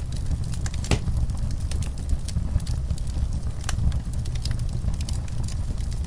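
Wood fire crackling, with irregular sharp pops and snaps over a steady low rumble; one louder pop about a second in.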